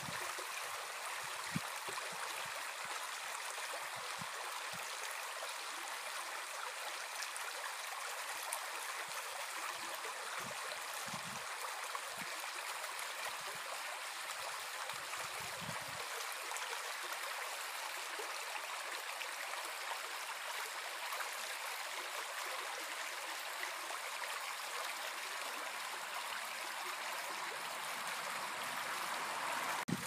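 Shallow brook babbling over stones: a steady rush of running water.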